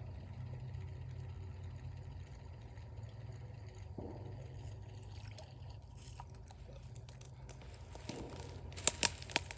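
Steady low rumble, then a few sharp knocks and rustles near the end as the phone is handled and moved.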